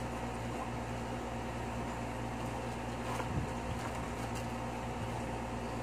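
Steady electric hum of a room cooling appliance running. Faint rustles of things being handled in a bag, with a soft knock about three seconds in.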